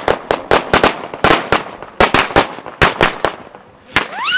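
Firecrackers going off in quick, irregular clusters of sharp bangs. Near the end, a whistle rises steeply in pitch.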